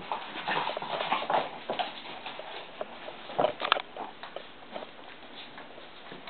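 Two Chihuahuas playing, their paws and claws scrabbling and pattering in quick irregular clicks, with a couple of louder scuffles.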